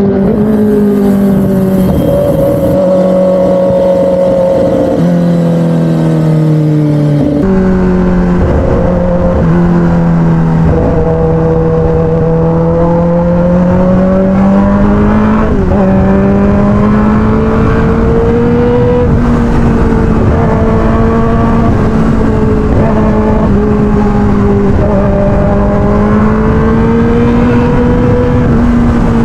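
Kawasaki ZX-10R inline-four engine running under way at cruising speed, its pitch rising and falling gently with the throttle, with a noticeable drop about five seconds in and a step up soon after. Wind rumbles on the microphone underneath.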